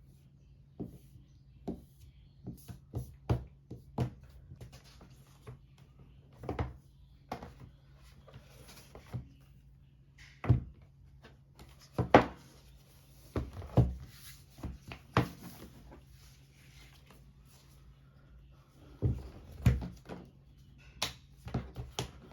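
Irregular knocks, taps and brief rustles of objects being handled, some louder thunks about 10, 12 and 19 seconds in, over a faint steady low hum.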